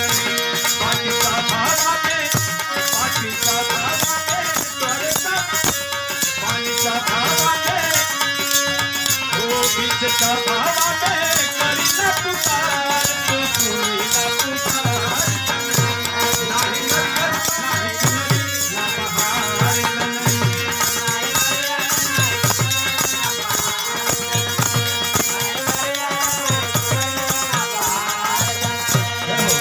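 Live Bhojpuri devotional song: a man singing through a PA microphone, with steady instrumental accompaniment and regular hand-drum strokes.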